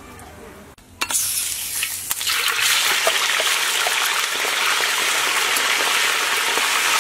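Pieces of food tipped into hot oil for deep-frying: a sudden burst of sizzling about a second in, which builds into a steady, loud, dense crackling sizzle as the oil bubbles up.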